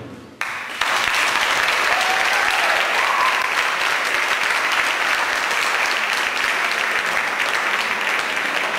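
Audience applauding at the end of a belly dance performance: clapping starts about half a second in, swells a moment later and then holds steady.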